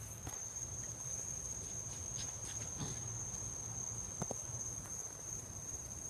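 Crickets trilling steadily in the night, one high unbroken tone, with a few faint knocks about two, three and four seconds in.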